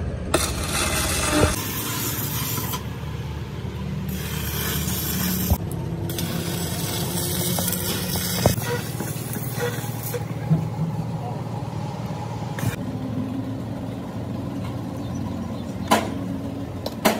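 Stick arc welding on a truck rear axle housing: the arc crackles and hisses in several stretches over the first ten seconds, over a steady low hum. A few sharp knocks follow later on.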